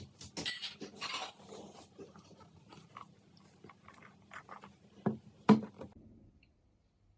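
Handling noises: scattered rustling and light clicks, then two sharper knocks about five seconds in, after which it goes quiet.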